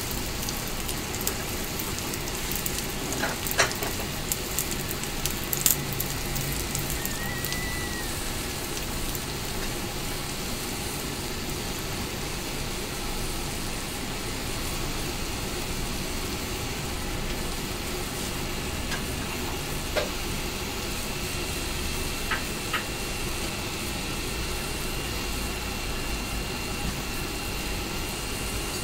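Mochi rice cakes toasting in a nonstick pan: a steady sizzling hiss with a few sharp pops, two in the first six seconds and a few more around twenty seconds in.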